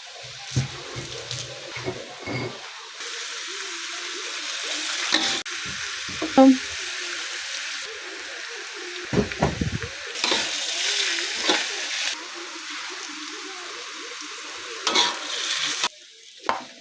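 Chayote sizzling as it is stir-fried in a pan, the hiss rising and falling in steps, with scattered knocks and clinks of a utensil against the pan.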